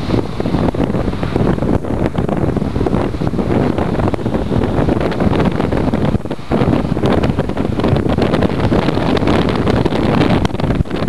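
Wind buffeting the microphone, a loud, steady rush that eases briefly about six seconds in.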